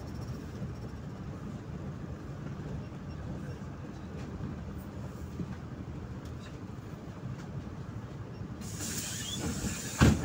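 PAZ 4234 bus's diesel engine and cabin rumble as the bus drives along, heard from inside. Near the end a hiss comes in, followed by a sharp loud knock.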